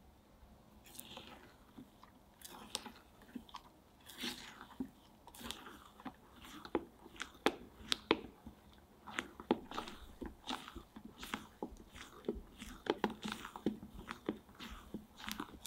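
Spatula folding whipped egg mixture into melted chocolate in a glass bowl: a run of irregular wet scraping and squelching strokes with light clicks against the glass, starting about a second in and coming faster toward the end.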